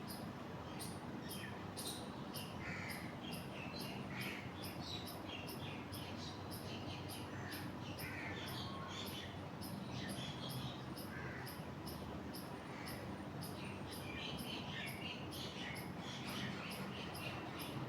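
Insects chirping in a regular high-pitched pulse, about three a second, with scattered bird chirps over a steady low rushing noise.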